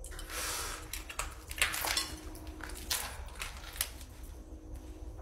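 Irregular crunches, rustles and sharp clicks of someone stepping over dry leaves and rubble.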